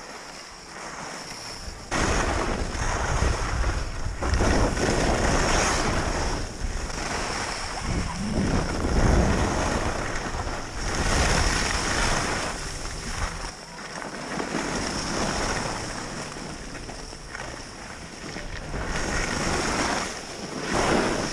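Wind buffeting the microphone of a camera carried downhill on skis, with the hiss and scrape of skis sliding on snow, swelling and easing in surges every few seconds.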